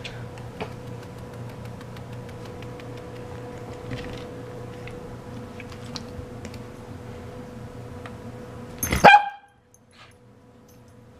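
A pet's single short, loud call about nine seconds in. Before it there is only faint handling noise with light clicks.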